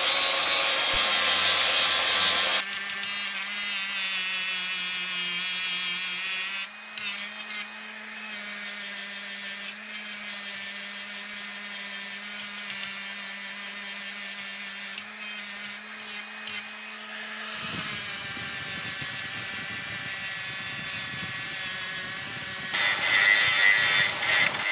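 Angle grinder grinding rust and steel off a hatchet head, the motor running with a steady note under load. The sound changes abruptly several times as passes are cut together.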